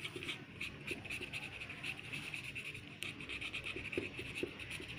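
Pencil scratching on paper in quick, short, repeated strokes, drawing the eyes on a folded-paper bird puppet.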